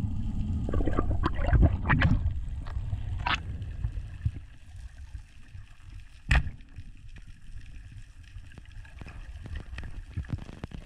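Muffled underwater rumble and water rush against an action-camera housing, with scattered clicks and knocks from the speargun gear. The rumble is heavy for the first few seconds, then dies down to faint ticking, broken by one sharp knock about six seconds in.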